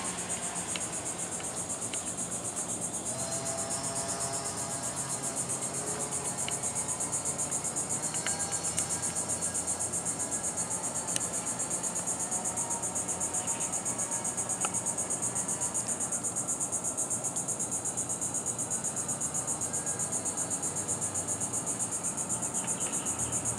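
Insects trilling in a steady, high-pitched, rapidly pulsing drone, with a faint low hum beneath and a few faint clicks.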